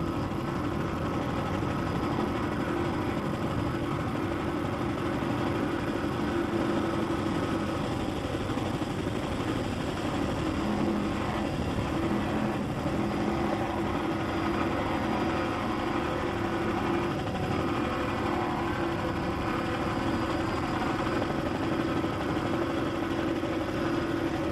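Offshore racing powerboat engines running flat out in a steady, unbroken drone.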